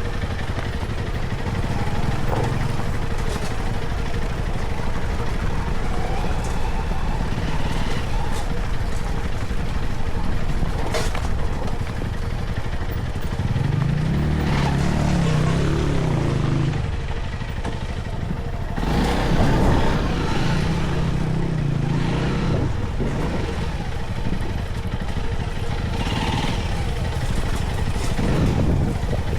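Vehicle engine running and revving up and down over a rough off-road trail, with the revs swelling twice and occasional knocks and rattles.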